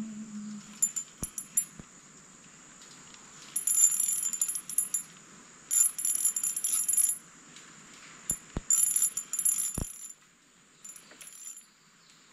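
Small spinning reel being cranked in three short spurts, each a high clicking whir about a second long, with a few light knocks from handling the rod between them.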